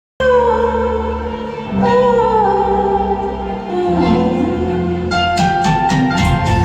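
Music opening a Hindi film song: held chords with gliding melody lines that change twice, then a run of quick struck notes begins about five seconds in.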